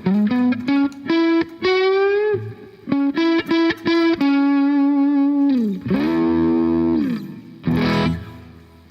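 Electric guitar played through a Behringer GDI21 amp-modelling pedal on its tweed amp model with high gain switched on, giving a distorted tone. A single-note lead lick with a rising string bend, a long held note bent down near the middle, then a strummed chord near the end.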